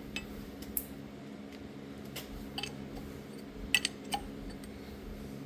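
Light metallic clicks and clinks from hand tools and metal parts being handled, about seven in all, the loudest a quick pair near the end, over a steady low hum.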